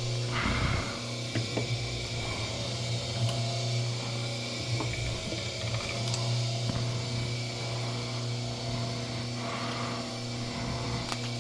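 Wire stripping machine running with a steady hum, with scattered clicks and knocks as thick insulated copper wire feeds through it.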